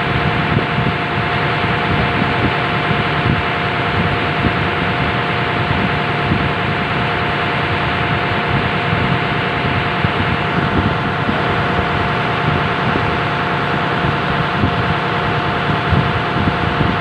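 Passenger boat's engine running steadily, heard on board: a loud, constant mechanical noise with a steady hum running through it.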